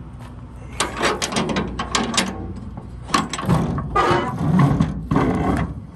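Close handling noise: fleece fabric rustling against the microphone, with irregular runs of clicks and rattles as the phone and its mount are moved. The noise comes in two bursts, about a second in and again from about three seconds in to near the end.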